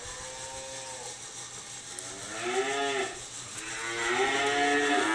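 Dairy cows mooing: a faint long call at the start, another about two seconds in, and a louder one that begins about four seconds in and is still going at the end.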